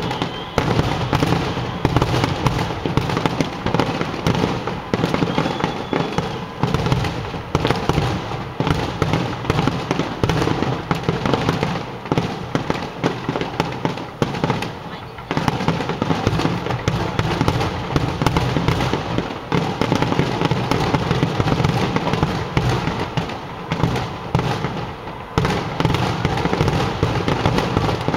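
Aerial fireworks display: shells bursting overhead in a dense, near-continuous barrage of overlapping bangs and crackles, easing briefly twice.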